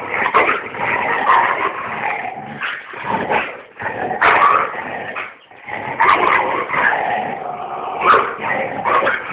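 Dog yipping and whimpering in a scuffle with a rooster.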